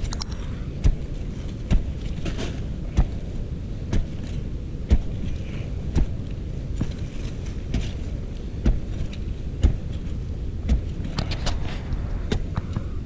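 A machete chopping and digging into soil, one knocking strike about every second, with a quick cluster of strikes near the end. A steady low rumble runs underneath.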